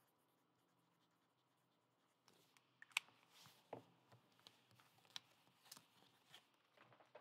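Near silence, then from about two seconds in, faint clicks, taps and short rustles of a trading card and a clear plastic card holder being handled on a table. The sharpest click comes about three seconds in.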